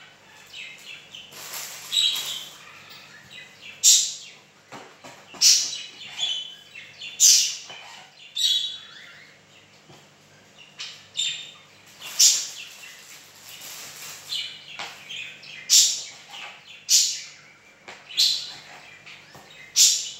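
Serrated knife sawing through the crusts of bread rolls on a plastic cutting board: short scratchy, crunchy strokes about every one to two seconds.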